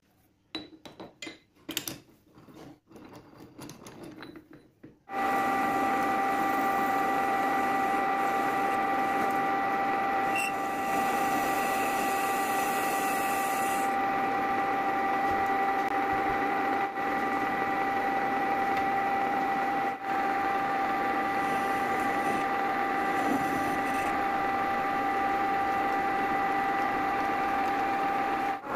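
Metal clinks and knocks as a steel bar is set and tightened in a lathe's three-jaw chuck. About five seconds in, the metal lathe starts and runs steadily with a constant gear whine of several steady tones. From about ten to fourteen seconds in, a hiss is added as the end of the bar is faced with the carbide tool.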